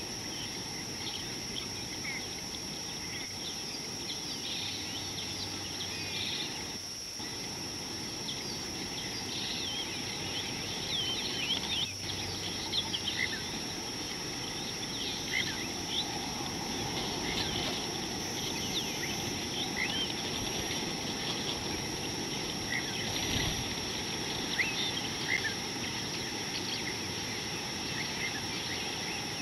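Daytime bush ambience: a steady high-pitched insect drone throughout, with many short bird chirps and calls scattered across it.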